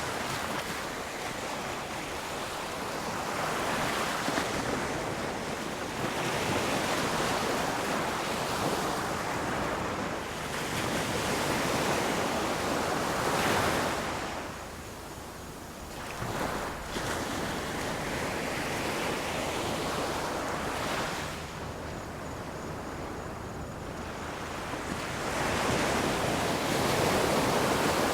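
Ocean surf breaking on a shore, the waves swelling and ebbing every few seconds, with a quieter lull about halfway through.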